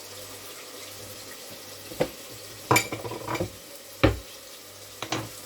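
Hot oil sizzling steadily in a cooking pot, with several sharp knocks and clatters of utensils against the pot, the loudest a dull thump about four seconds in.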